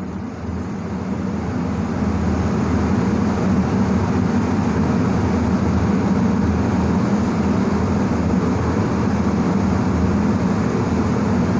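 Steady low mechanical rumble, like a running motor or engine, growing louder over the first two seconds and then holding level.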